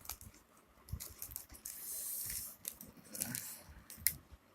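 Handling noise from unboxing earphones: scattered light clicks and a couple of brief rustles of packaging, with a sharper click near the end.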